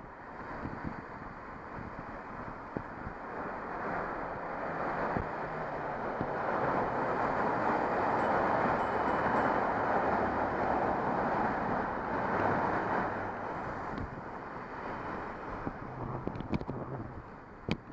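Rushing noise of car traffic in a road underpass, mixed with wind on the microphone of a camera riding on a moving bicycle. It swells to its loudest midway through, then eases, with a few sharp clicks near the end.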